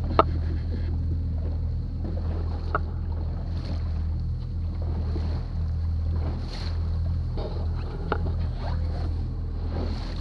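Rigid inflatable boat's engine running steadily at trolling speed, a low drone, with a few sharp knocks over it.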